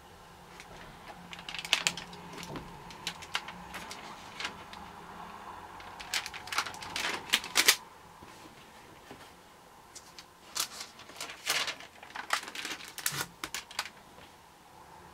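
Stamp album pages being turned by hand, the stiff leaves and their transparent interleaving sheets crackling and rustling in three spells, the loudest near the middle.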